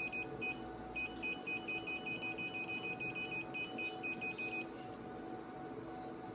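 Rapid train of short, high-pitched key beeps from the touchscreen control panel of a cavitation/RF slimming machine as the decrease button is pressed, stepping the working time down. The beeps stop about four and a half seconds in, leaving a steady low hum.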